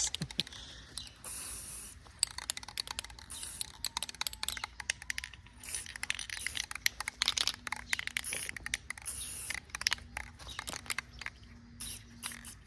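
Aerosol spray paint can hissing in a few short bursts, among many light clicks and scrapes of handling.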